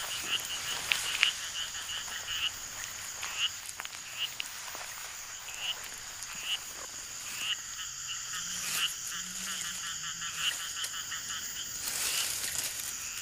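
Forest ambience of calling frogs: short rattling calls repeat every second or so over a steady, high insect drone, with a few deeper notes about eight seconds in.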